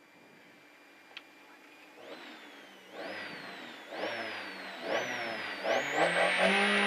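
The four-cylinder engine of a VW Golf III Kitcar rally car is blipped about once a second while the car stands still, the revs rising and dropping back four times and growing louder. From about six seconds in the revs are held steady and high, ready for the start.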